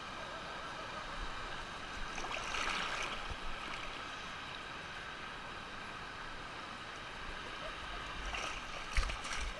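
Waterfall water rushing steadily, swelling louder about two to three seconds in and again near the end. A sharp knock sounds about nine seconds in.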